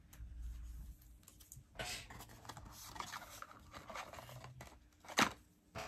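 Trading cards and their plastic sleeves and holders being handled on a desk: scraping and rustling, with a sharp click about five seconds in.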